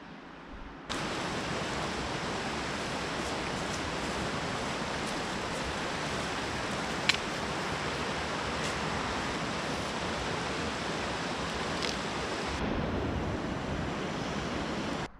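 Shallow mountain river rushing over a rocky riffle: a steady wash of water that starts abruptly about a second in, with one sharp click about seven seconds in.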